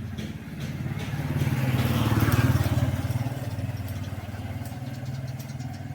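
A motor vehicle engine running with a steady low pulse, growing louder to a peak about two and a half seconds in, then easing off.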